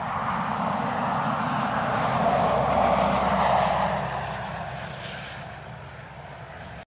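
Land Rover Defender 90 driving past across rough grass, engine and tyres droning, getting louder to a peak about three seconds in and then fading away. The sound stops abruptly just before the end.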